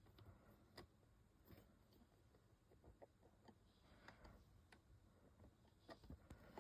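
Near silence with a few faint, irregular clicks of small plastic building bricks being handled and pressed together.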